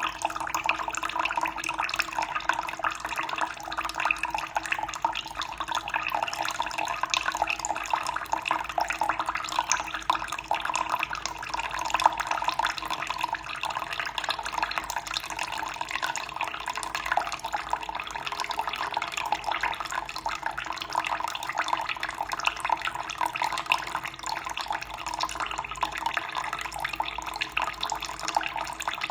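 Running water, flowing and splashing steadily with a dense, even trickle.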